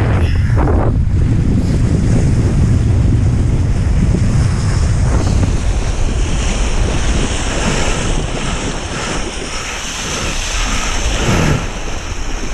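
Strong wind buffeting the microphone while kitesurfing through ocean slush, with a rushing hiss of water and slush that rises from about halfway in.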